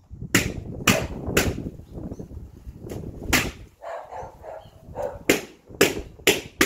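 Latex party balloons being popped by hand, one after another: a string of sharp bangs, about eight in all, several of them coming in quick succession near the end.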